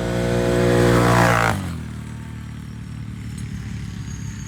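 Can-Am ATV engine through a Yoshimura exhaust, revved once. The pitch climbs for about a second and a half, then drops back to a deep, steady idle.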